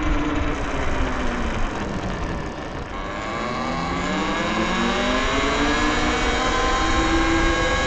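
Talaria Sting R MX4 electric dirt bike's motor and drivetrain whining under way, with wind and road noise. The pitch falls as the bike eases off over the first three seconds, then rises steadily as it accelerates again.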